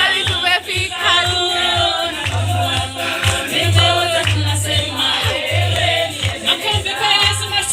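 Gospel music: a group of voices singing over a heavy bass beat.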